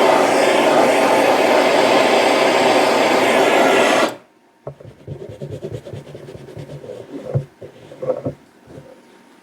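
A power tool working a steel block runs steadily with a harsh, even noise, then stops abruptly about four seconds in. After that come light knocks and taps as the steel is handled.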